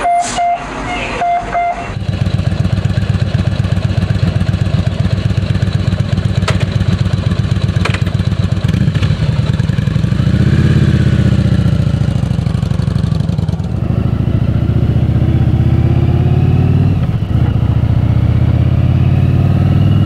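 Yamaha V-twin cruiser motorcycle engine running steadily, with a brief rise and fall in revs about ten seconds in.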